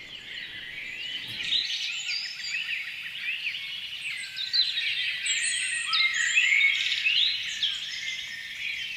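A chorus of many small birds chirping, short rising and falling chirps overlapping densely. It fades in over the first few seconds.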